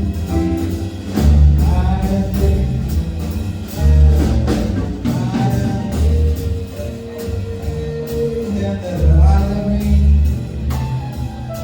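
A band playing a song: drum kit keeping a steady beat, with bass, guitar and a held melodic line, between sung verses.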